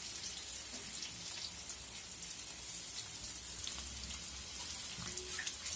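Chopped onions, garlic, capsicum, curry leaves and ground sweet corn frying in oil in a pan with a steady sizzle.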